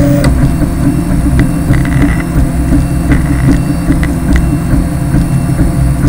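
3D printer running while it prints in ABS, a steady low mechanical hum with short whining tones from the moving motors about two and three seconds in.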